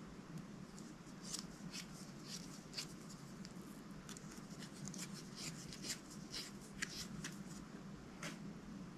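Clear slime being squeezed and worked by hand, giving faint, irregular small clicks and pops that start about a second in, over a steady low hum.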